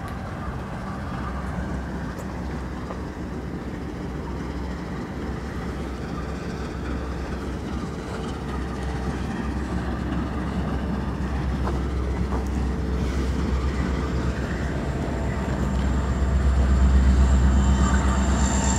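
Freight train with a diesel locomotive running on the yard tracks: a steady low rumble with engine hum that grows louder over the last few seconds. A thin high whine joins near the end.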